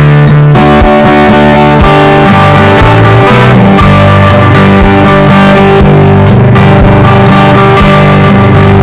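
Loud background music led by guitar over a steady beat.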